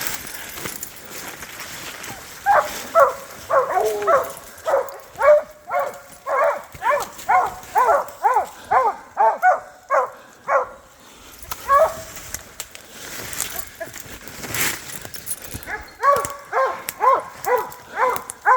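Hounds barking at a bear they have treed, a quick run of barks about two a second that pauses around eleven seconds in and starts again near the end. The steady barking at the tree is the sign that the bear is treed.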